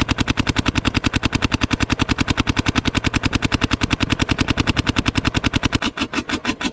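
Planet Eclipse CS3 electronic paintball marker firing in a steady stream of rapid shots, about a dozen a second, heard close up.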